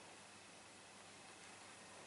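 Near silence: room tone with a faint, steady hiss.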